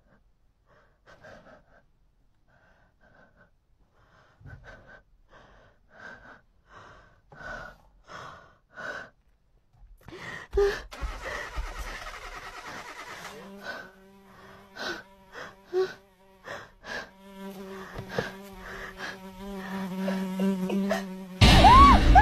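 Short, rapid gasping breaths from a frightened person, growing louder. After about ten seconds a steady buzzing drone comes in under them. A sudden loud burst of noise breaks in near the end.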